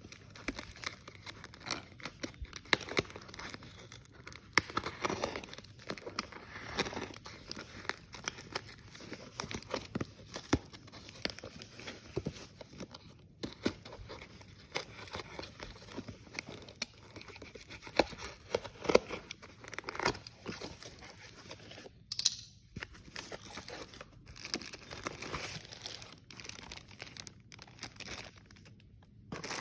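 Packaging crinkling and tearing as a parcel is unwrapped by hand: dense, irregular rustling and crackling, with a few louder rips and brief pauses near the end.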